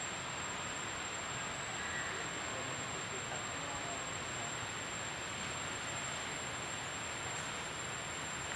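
Steady outdoor background hiss, with a thin, high, unbroken whine held above it.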